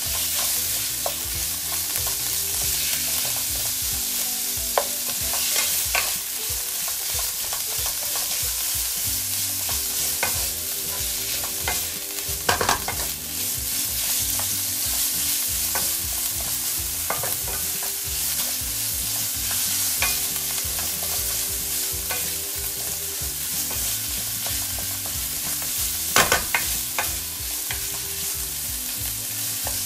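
Ground meat sizzling in hot oil in a nonstick frying pan as it browns, stirred and broken up with a wooden spatula. A steady frying hiss with scraping and the odd knock of the spatula on the pan, the loudest knocks about twelve seconds in and near the end.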